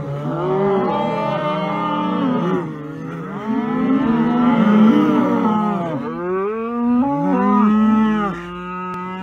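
A herd of cattle mooing, many long calls overlapping with hardly a break, each rising and falling in pitch.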